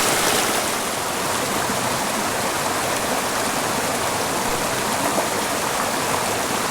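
Small mountain creek flowing, a steady rush of water.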